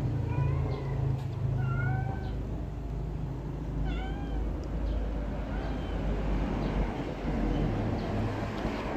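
Young kitten mewing: repeated short, high mews, most of them in the first four seconds and fainter after. A low steady rumble runs underneath.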